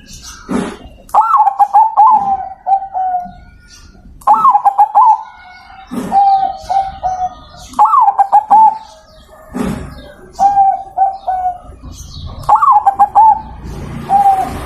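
Zebra dove (perkutut) cooing its song about five times, each phrase a rising first note followed by a quick run of short, lower, falling notes.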